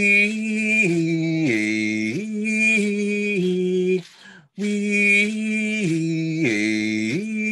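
A man singing a slow, chant-like prayer song unaccompanied, in held notes. Each phrase steps down in pitch and climbs back up, and after a short breath about four seconds in the same phrase comes again.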